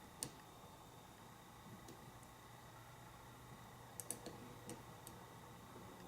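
Faint metallic clicks of a small diamond pick working the wafers of a Chicago wafer lock against tension: a single click about a quarter second in and a small cluster of clicks about four seconds in.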